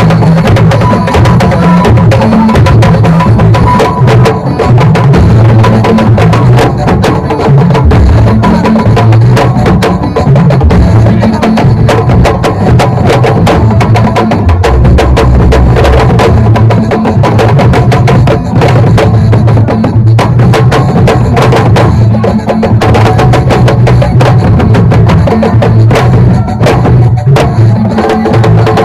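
Loud music driven by drums, with dense fast percussion strikes over a pulsing bass.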